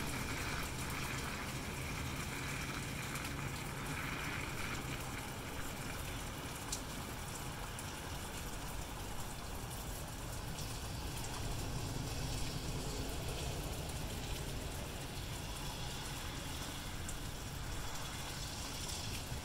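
Steady rain hiss, with the swish of car tyres on the wet road fading out over the first few seconds as a car drives away.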